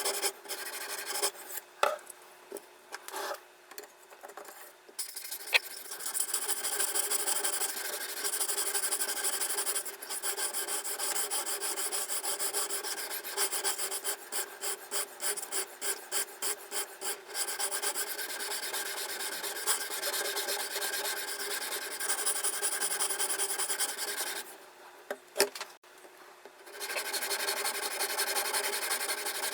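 A diamond sharpening stone on a guided knife sharpener scrapes back and forth along the blade of a Victorinox folding knife. Long stretches of scraping alternate with a run of quicker strokes at about two a second in the middle. There are two short pauses broken by a few clicks.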